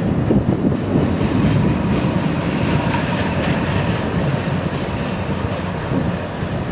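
A train running on the rails with a steady rumble, and wind buffeting the microphone.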